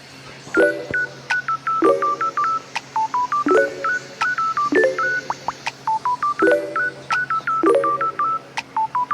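Rapid electronic keypad-style beeps, several a second, each a short tone that jumps up and down in pitch like phone dialing tones. A lower cluster of tones comes in about once a second.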